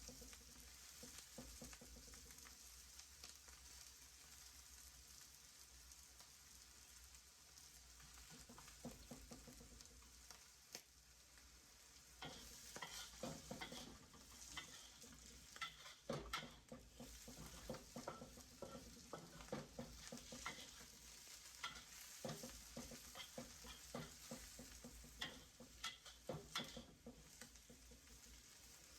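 Food sizzling faintly in a pan while a utensil stirs and scrapes it, with the scraping and clicking more frequent in the second half.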